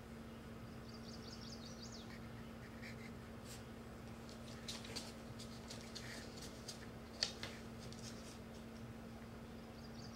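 Young puppies giving faint high-pitched squeaks, a short run about a second in and another at the end, over a steady low hum. In the middle come light clicks and rustles as the adult dog moves in close, with one sharper click about seven seconds in.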